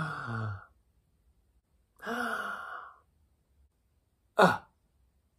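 A man's breathy sighs: one falling in pitch at the start and a second about two seconds in, then a short sharp intake or exhale of breath near the end.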